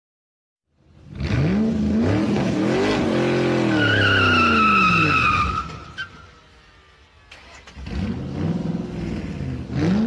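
Car engine revving up and down, with a tyre squeal as the revs fall; it dies away about six seconds in. A second engine rev comes in about seven and a half seconds in and rises near the end.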